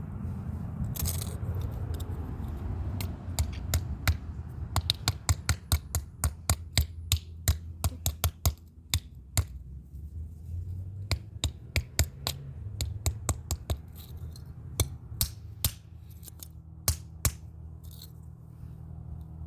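Dozens of sharp, irregular clicks and knocks as an RFID lock keypad's casing and circuit board are broken apart, coming thick and fast through the middle and thinning out near the end. A steady low hum runs underneath.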